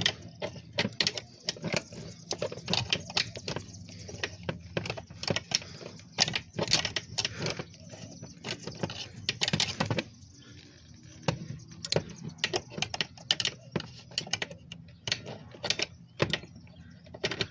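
Irregular light clicks and taps of a 10 mm socket knocking against the bolt and the surrounding dash as it is worked onto the instrument cluster's retaining bolt.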